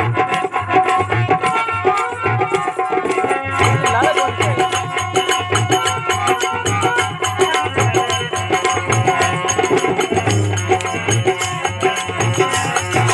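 Instrumental interlude of a Marwari devotional bhajan (satsang bhajan): hand drums keep a steady rhythm under sustained melodic notes, with no singing.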